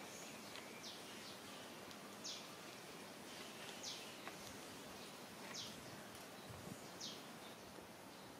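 Quiet outdoor background noise with a short, high call that falls in pitch, repeated about five times roughly every second and a half.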